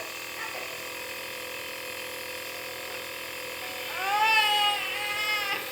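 Compressor nebulizer running with a steady hum during a baby's cough treatment. About four seconds in, the baby lets out one high-pitched cry lasting about a second and a half.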